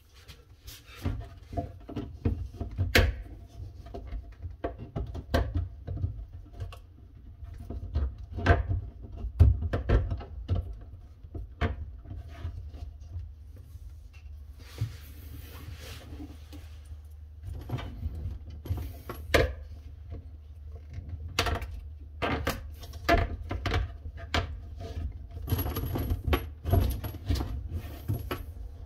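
Plastic and metal parts of a sink drain fitting being handled and fitted by hand, making irregular clicks, knocks and light rattles over a steady low hum.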